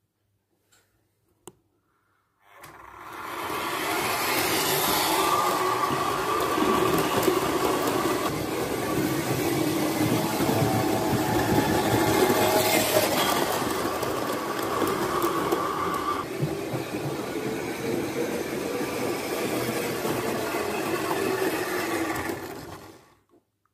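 Gauge 1 model steam locomotive running on its track, giving a steady mechanical running noise that starts about two and a half seconds in and stops suddenly near the end.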